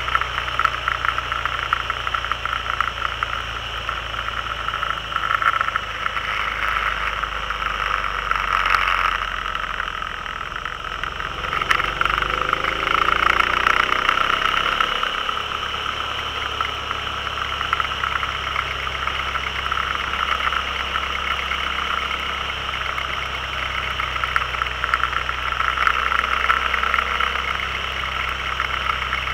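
Can-Am Spyder's engine running at road speed under a steady rush of wind and road noise. About twelve seconds in, the engine pitch rises for a couple of seconds as it accelerates.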